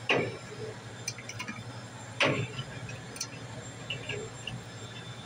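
Full aluminium drink cans being handled and set down on a wire shelf of a drinks cooler: two loud clunks about two seconds apart, with light metallic clicks and clinks between them, over a steady low hum.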